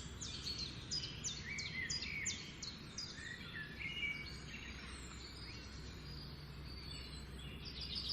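Songbirds singing: a quick run of high, sharply falling whistled notes, about three a second, through the first half, then softer, lower chirps, with another rapid run starting near the end. A steady low rumble of outdoor background noise runs underneath.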